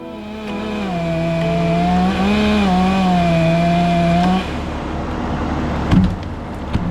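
Chainsaw running at high revs with a wavering pitch, then turning into a rougher sound with no steady pitch about four and a half seconds in. Two short knocks near the end.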